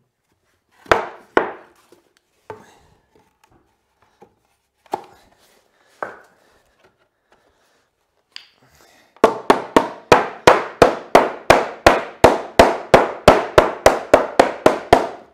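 Hammer striking pressure-treated timber in a fast, even run of blows, about four a second, through the last six seconds, knocking the glued half-lap joint of the crossed picnic-table legs together. Before that come a few single wooden knocks as the boards are laid in place.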